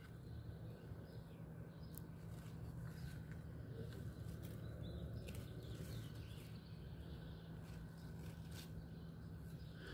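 Faint rustling of radish leaves and scattered small snaps as radishes are pulled from garden soil by hand, over a low steady rumble, with a few faint bird chirps.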